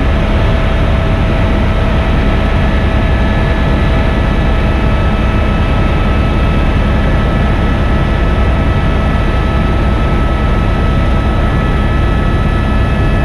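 Tour helicopter in flight, heard from inside the cabin: loud, steady rotor and engine noise with a steady high whine running through it.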